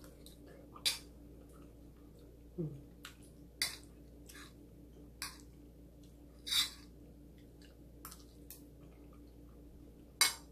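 Eating sounds: a spoon and fork clinking and scraping on a plate, with chewing, in short scattered clicks about one a second.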